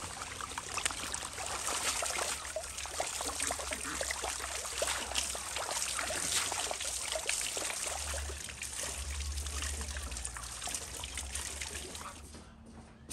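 Water running from a spout into a basin of rinsing water, with trickling, dripping and small splashes as bunches of fresh dill are lifted out. The water sound drops away near the end.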